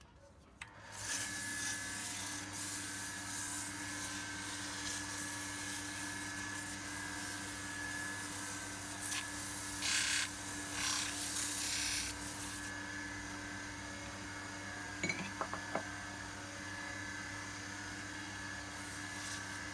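Wood lathe running with a steady motor hum while sandpaper is held against the spinning wooden doorknob, giving a rushing hiss. The hiss eases off about twelve seconds in, with a few light knocks a little later.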